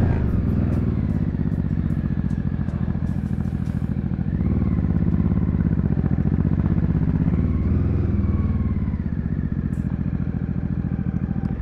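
JS700 motorcycle engine running at low speed, its pitch lifting briefly twice as the bike rolls forward, then stopping abruptly near the end.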